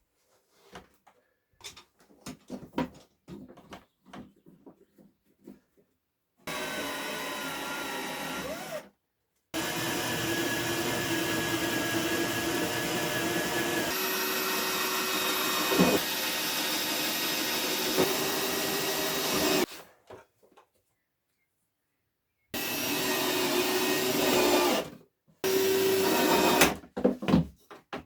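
An electric drill runs in four bursts, the longest about ten seconds, its whine shifting pitch partway through. Light knocks and clicks come before the first burst.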